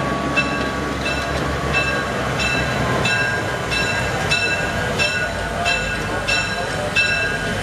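Diesel switcher locomotive moving off, its engine rumbling low and fading as it goes, while its bell rings steadily at about three strikes every two seconds.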